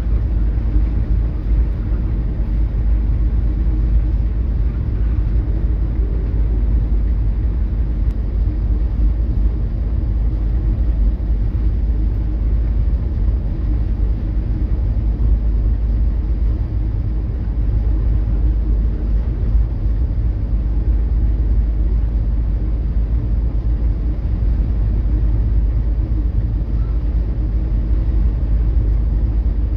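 Coastal cargo ship underway into rough, wind-driven seas: a steady low rumble with a faint machinery hum running under it.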